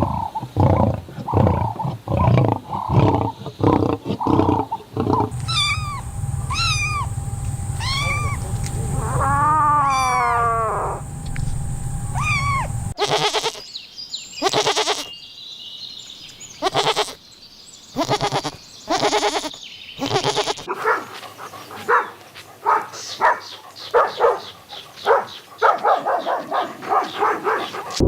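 A run of different animal calls, one after another: rhythmic grunting pulses, then repeated pitched calls, then a fast series of short pulses near the end.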